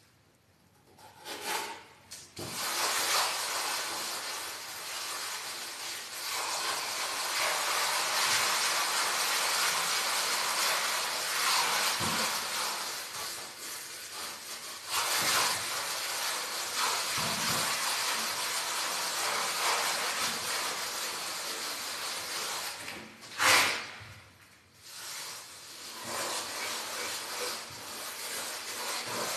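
A hand float rubbing over a fresh coat of Fassa Bortolo fine finishing plaster on a wall as it is floated to a finish: a steady scratchy rubbing that starts about two seconds in. Near the end there is a sharper, louder scrape, a short pause, and then the rubbing resumes.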